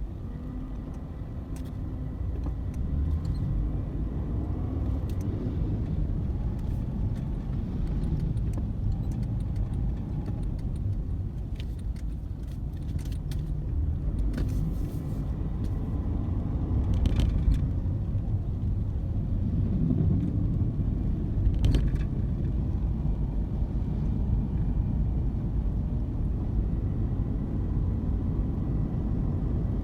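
Steady low rumble of motor traffic, with a few short clicks and rattles near the middle.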